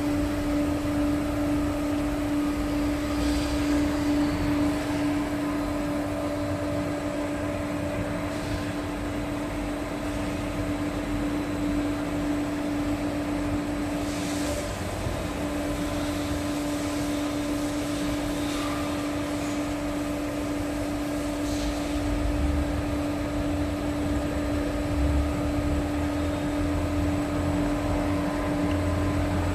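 Hydraulic power unit running, its pump giving a steady hum with a constant whine over a low rumble, with a few faint ticks.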